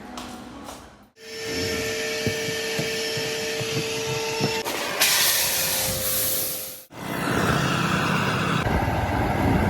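A run of short cut-together clips of air-conditioner cleaning work: a motor running with a steady hum, then a loud hissing water spray for about two seconds, then steady machine noise again.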